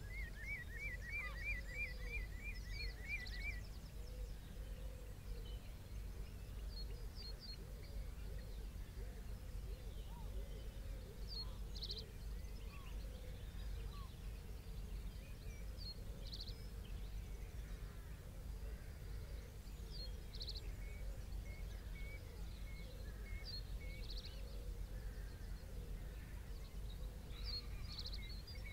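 Estuary ambience: birds give short high chirps every few seconds, with a fast trill of rapidly repeated notes in the first few seconds, over a steady low rumble.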